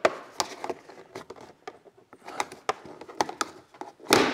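Plastic body panel on a Honda Gold Wing being pulled off by hand: an irregular run of sharp clicks and snaps as its retaining clips pop loose, with a louder snap near the end.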